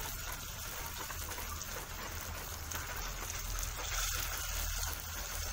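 Raw plantain vada patties sizzling in hot oil in a pan, a steady frying hiss that grows a little louder about four seconds in as a second patty goes into the oil.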